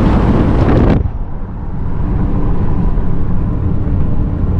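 Car driving on a road, heard from inside: steady low rumble of engine and tyres. A louder rushing noise fills the first second and cuts off abruptly.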